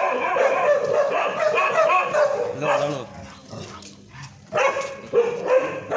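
A dog yelping and whimpering in short, high-pitched calls, with a quieter gap of about a second and a half beginning some three seconds in.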